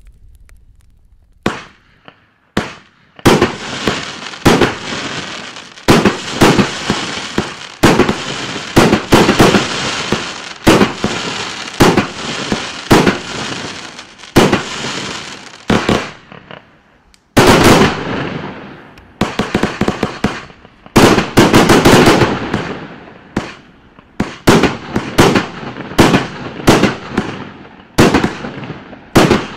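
Klasek Pyrotechnology 2020 128-shot, 30 mm calibre firework cake firing: a rapid run of shots and bursts starting about a second and a half in. Near the middle the firing briefly lulls, then resumes just as loud.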